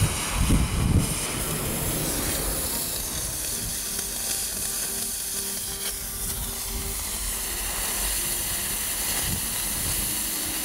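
Oxy-fuel cutting torch hissing steadily as its flame pierces a hole through a steel forklift fork, louder and rougher for the first second.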